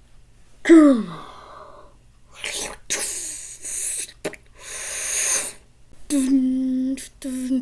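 A person's voice making wordless cartoon-character sounds: a short falling cry, then three noisy breathy bursts, then two short held hums near the end.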